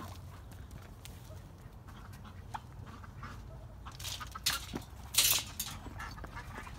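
Faint scattered clicks and shuffling over a low background hum, with two short, louder noisy rustling bursts about four and five seconds in, and faint chicken sounds from the chicken yard.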